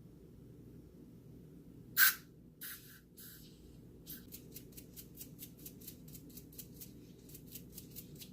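A single sharp clink about two seconds in, then a small brush scrubbing in quick, regular strokes, about four a second, cleaning bicycle hub ratchet parts in degreaser.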